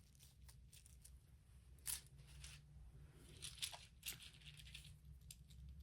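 Faint clicks and light rustling of small 3D-printed plastic toys being handled, with a sharper click about two seconds in and a few more near the end.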